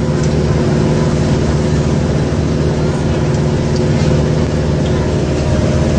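Ferry boat's engine running steadily under way, a loud, even drone heard from inside the passenger cabin.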